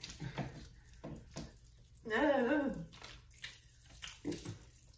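A woman's wavering, pained whine lasting under a second, about two seconds in, as she reacts to an extremely sour candy. Soft scattered clicks and mouth noises come before and after it.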